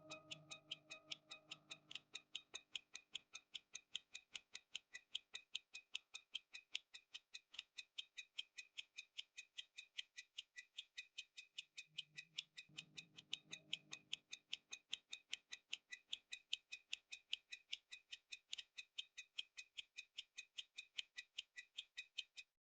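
Omega Caliber 19 pocket watch ticking steadily, about five ticks a second. Soft music chords sound faintly near the start and again about halfway through.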